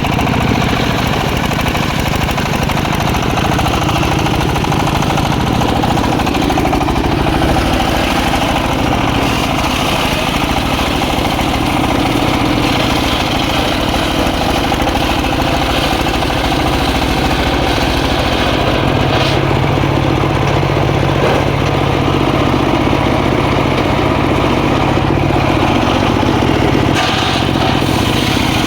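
Engine-driven circular saw running steadily as it rips teak, with a lower hum that grows stronger about nineteen seconds in.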